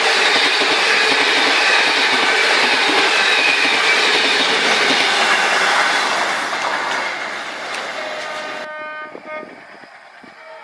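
An Indian Railways train running past, a loud dense rumble and rattle of wheels on track that fades away over the second half. Near the end the sound changes abruptly to a quieter, steady pitched tone like a distant train horn.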